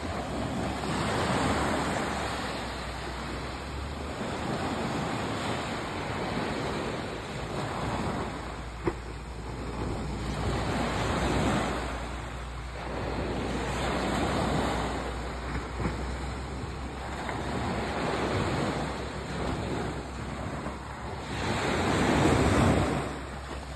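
Small sea waves breaking and washing up a sand and pebble beach, each wash swelling and fading every two to three seconds, the biggest one near the end.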